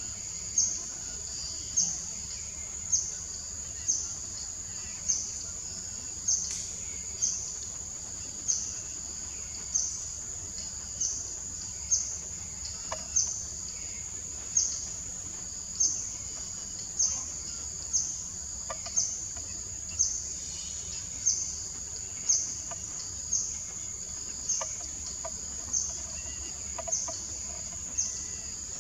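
A steady, shrill insect chorus that pulses, swelling sharply about once a second.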